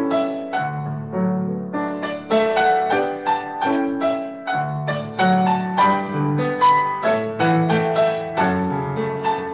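Upright piano played solo: a slow, lyrical melody over lower bass notes, with a new note or chord struck every fraction of a second.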